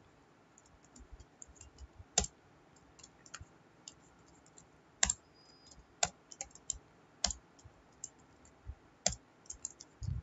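Typing on a computer keyboard: irregular, soft key clicks, with a handful of louder keystrokes among them.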